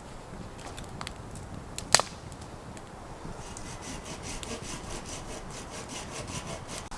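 Wood being cut with a hand saw in quick, even strokes, about four a second, starting about three seconds in. About two seconds in there is a single sharp crack of wood.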